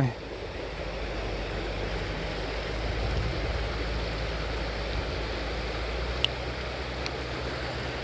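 Steady rushing of flowing creek water, with wind buffeting the microphone. A single sharp click about six seconds in.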